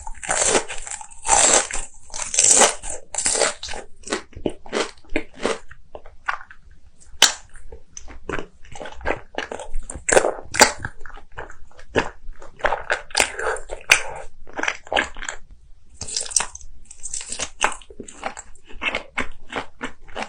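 Close-miked eating: crisp, crunchy bites and chewing, many short crunches in irregular quick runs.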